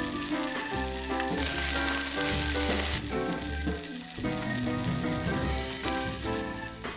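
Diced pressed tofu and sliced shiitake mushrooms sizzling in hot oil in a frying pan while being stir-fried, dry-fried until they brown and turn fragrant. The sizzle flares louder from about one and a half to three seconds in, and again near the end.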